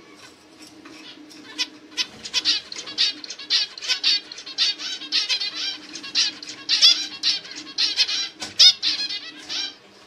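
Male zebra finch singing: a few scattered notes, then from about two seconds in a fast, dense string of short high notes that runs on until just before the end.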